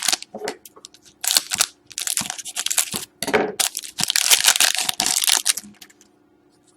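Hockey trading cards and their foil pack wrapper being handled, rustling and crinkling in a run of short scraping bursts that die away about six seconds in.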